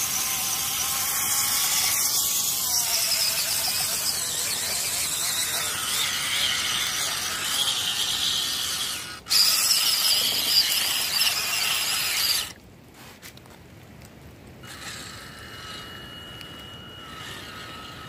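High-pitched whine of a WPL C14 RC truck's small electric motor and gearbox, rising and falling in pitch with the throttle as it drives. It breaks off briefly about halfway, then drops to a much fainter steady whine about two-thirds of the way in.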